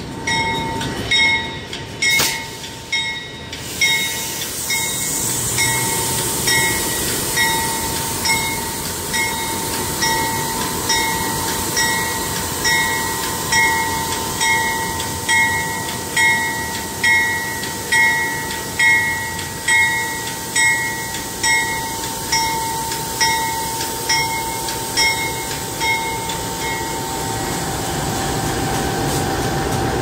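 Pacific National diesel freight locomotives passing slowly at close range, engines running, with a ringing clang repeating a little more than once a second that stops a few seconds before the end.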